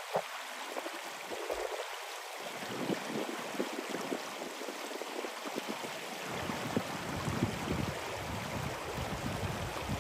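Small shallow stream running over gravel, a steady babble. A low rumble joins in about six seconds in.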